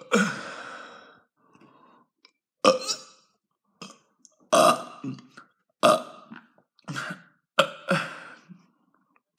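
A person burping over and over: a string of short, loud belches, about one a second, with brief silent gaps between them.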